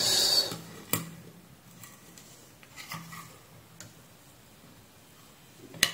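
Sparse light clicks and ticks of steel tweezers handling a tiny transformer pin, the sharpest one near the end. There is a short breathy hiss at the start.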